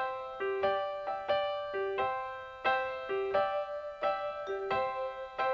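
Piano music: notes and chords struck about every half second, each ringing and fading before the next.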